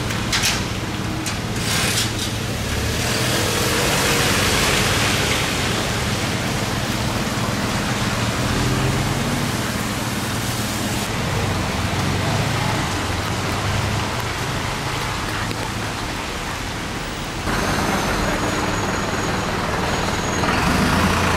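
Street traffic on a rain-wet road: cars pass with a hiss of tyres on wet pavement over a steady low engine hum. About 17 seconds in the noise jumps abruptly to a louder stretch.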